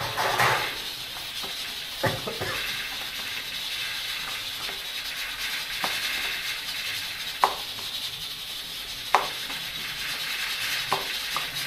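A steady hiss runs throughout, with a few sharp taps and knocks, about six spread out, as dough is handled and shaped on a cloth-covered table.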